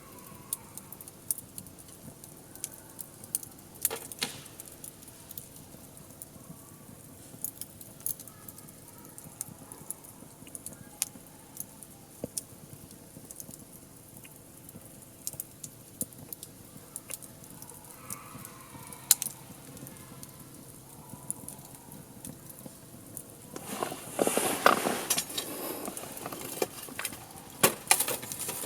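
Wood fire crackling in a LOGOS the Pyramid TAKIBI M fire pit, with scattered sharp pops. About 24 seconds in the crackling turns louder and denser for a couple of seconds.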